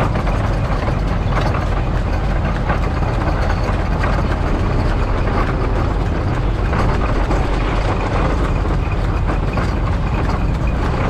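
Motorcycle engines running steadily with road noise, loud and unbroken.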